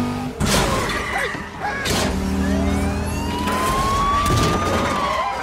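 Film car-chase sound effects: car engines running hard, two sharp crash impacts about half a second and two seconds in, and a police siren wailing up and back down.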